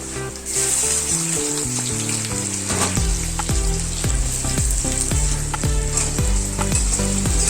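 Indian mackerel (bangda) frying in hot oil, a steady sizzle that comes up about half a second in. Background music plays under it, with a regular beat from about three seconds in.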